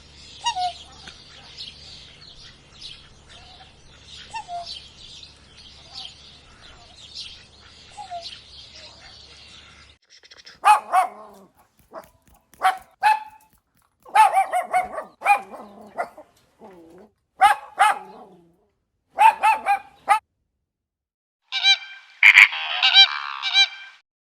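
Animal calls. For about ten seconds there is a dense, high chattering of many small calls. After a sudden cut come loud calls, singly or in pairs, about a second apart, and a buzzier call near the end.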